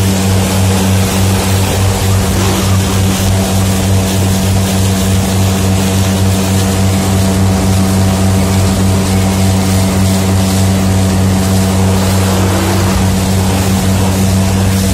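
Motorboat engine running at a steady high speed, an unchanging low hum, over the rush of water and wind as the boat planes.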